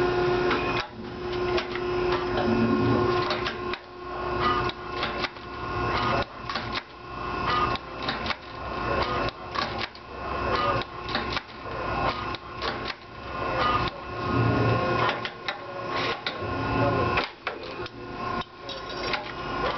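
CNC wire-bending machine working through a bending cycle: the bend head turns and stops in quick successive moves, with whirring motor noise, clicks and knocks as the wire is fed and bent.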